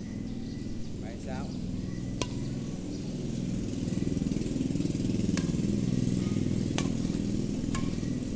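Badminton rackets striking a shuttlecock in a rally: four sharp hits spaced one to three seconds apart, over a steady low background rumble.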